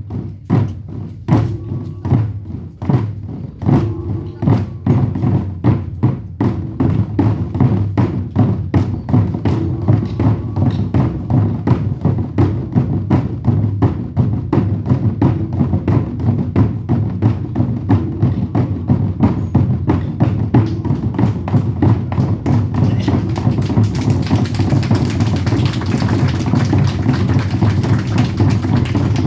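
Korean drum ensemble (buk) playing Goguryeo-style drumming: heavy beats, spaced apart at first, quicken into a fast, dense rhythm. A hiss-like wash of noise joins the drumming near the end.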